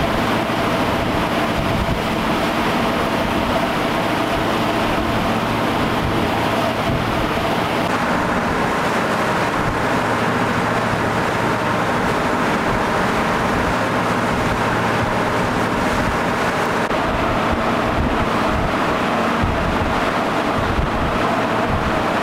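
Steady engine drone with a constant hum held at a few fixed pitches, under wind noise.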